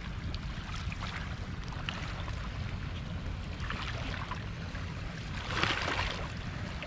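Steady rush of the river's tailwater flow below the dam, with a brief louder noisy burst about five and a half seconds in.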